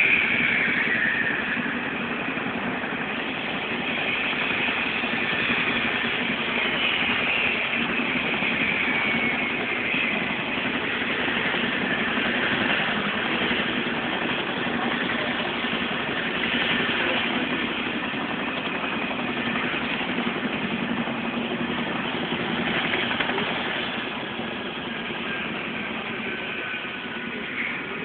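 CH-47 Chinook twin-turbine, tandem-rotor helicopters running: a steady engine and rotor noise with a low hum, and a high turbine whine that slowly slides down in pitch now and then.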